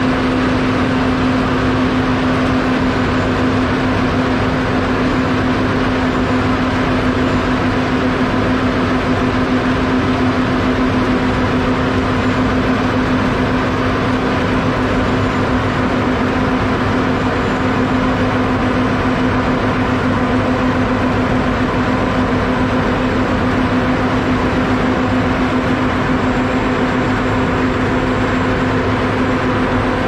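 Heavy asphalt paving equipment, a Roadtec SB-2500e Shuttle Buggy material transfer vehicle feeding a paver, running continuously under diesel power. It makes a loud, unchanging machine drone with a steady low hum.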